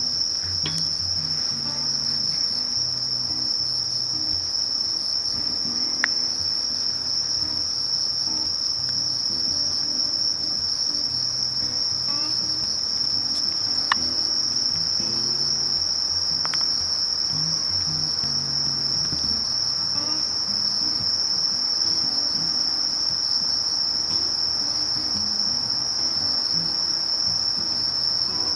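Sasakiri katydid (Conocephalus melaenus) singing a continuous high-pitched 'shiri-shiri-shiri' trill without a break. A couple of faint clicks sound, about six and fourteen seconds in.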